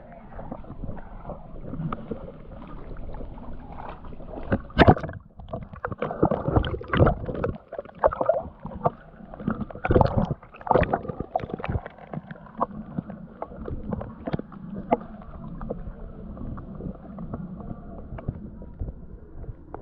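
Water splashing and gurgling, with many irregular knocks and splashes, busiest through the middle and settling into a steadier wash near the end.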